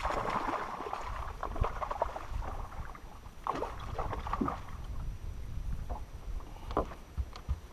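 A hooked bass thrashing and splashing at the water's surface beside the boat as it is landed, in irregular bursts that are loudest in the first couple of seconds, with a few sharp knocks near the end.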